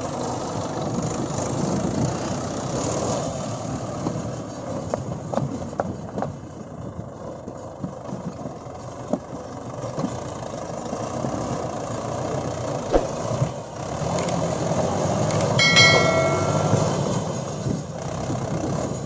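Mahindra 585 DI tractor's four-cylinder diesel engine running steadily as the tractor drives on iron cage wheels, with scattered knocks. A short high-pitched tone sounds about three-quarters of the way through.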